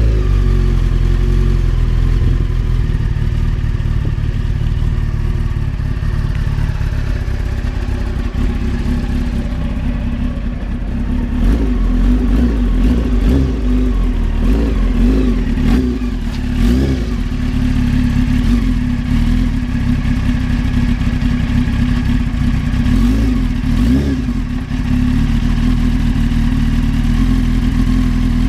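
1993 Honda CBR900RR inline-four engine idling, with several short throttle blips in the middle and again near the end. The owner says the engine has started knocking after a hard burnout.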